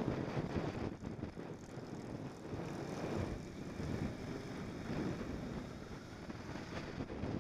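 Motorcycle riding at steady speed, heard from the bike itself: wind buffeting the microphone over the engine and road noise.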